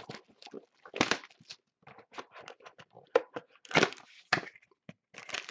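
Cardboard trading-card box being opened by hand: a string of irregular scrapes, crackles and tearing sounds of cardboard flaps, with louder scrapes about a second in and again near four seconds, and a longer rustle of the box sliding at the very end.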